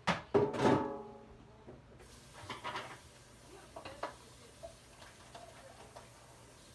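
Metal pots and pans clanking: two loud clangs in the first second that ring briefly, then a few lighter clinks and knocks.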